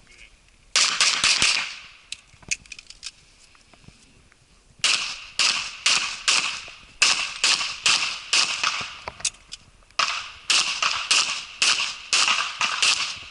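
Pistol shots from a practical-shooting pistol firing major power factor loads: a quick string of several shots about a second in, then from about five seconds a steady run of rapid shots, roughly two to three a second, with a brief break near ten seconds.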